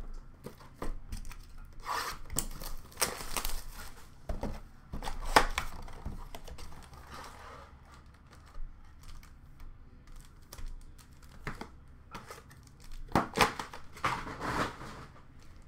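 Upper Deck hockey card blaster box being torn open and its packs handled: cardboard tearing and wrappers crinkling, in rasping bursts from about two seconds in and again a second time near the end, with small clicks and knocks between.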